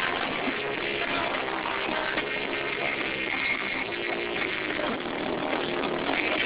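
Rock band playing live in a concert hall, a dense, distorted wall of amplified guitars and drums with no clear break.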